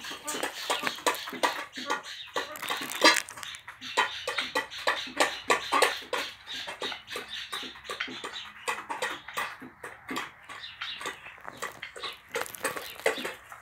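Himalayan monals pecking grain from a metal bowl: quick, irregular taps of beaks on the metal, several a second.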